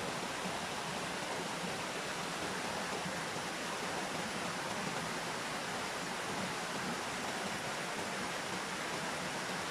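Waterfall rushing, a steady, even roar of falling water that does not change.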